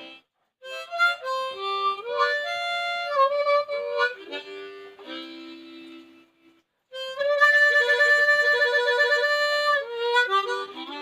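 Instrumental intro on a harmonica: a phrase of changing chords, a brief break about six and a half seconds in, then a long held wavering chord.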